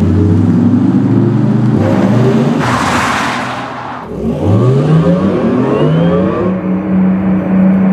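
Car driving and accelerating over a steady low hum: a rushing whoosh about three seconds in, then a rising tone that climbs for a couple of seconds and levels off.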